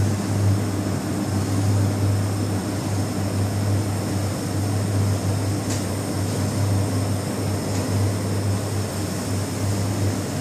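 Steady low machine hum with an even hiss, unchanging throughout, with a single faint click a little past halfway.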